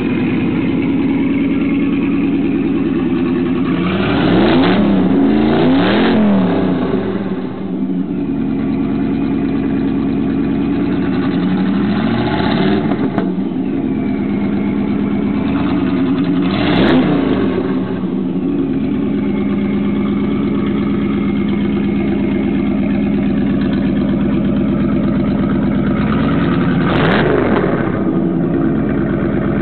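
Supercharged 1989 Pontiac Trans Am GTA V8 idling through an exhaust fitted with a Badlandz exhaust cut-out. The throttle is blipped about five times, each a short rev that rises and drops quickly back to idle.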